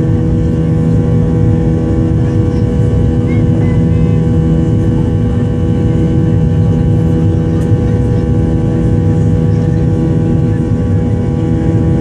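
Boeing 737-800's CFM56-7B jet engines running steadily, heard from inside the passenger cabin: a loud, even hum with several held tones and no change in pitch.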